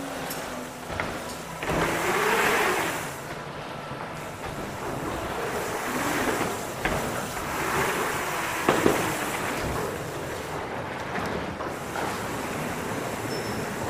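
Mountain bike ride on a dirt track: a steady rush of wind noise across the camera microphone and tyres rolling, swelling twice, with a few sharp knocks from the bike going over the track.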